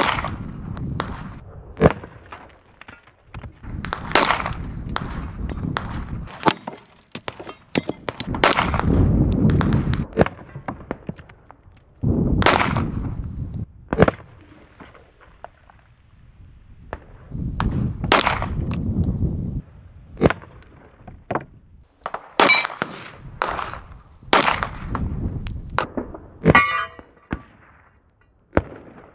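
A Glock 30S compact .45 ACP pistol firing about a dozen single shots at irregular intervals of one to four seconds.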